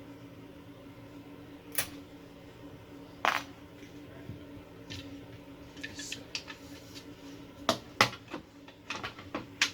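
Sharp clicks and knocks of hand tools on a wooden panel as old cabinet magnets are pried off. There are two loud single knocks in the first half, then a quicker run of clicks and knocks in the second half.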